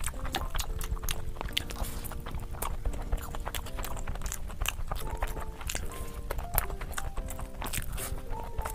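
Close-up chewing with wet, sticky mouth clicks and smacks, over a simple background melody.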